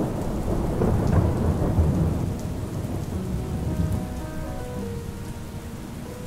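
A low rumble of thunder over steady rain, the rumble fading away over the first few seconds while the rain goes on.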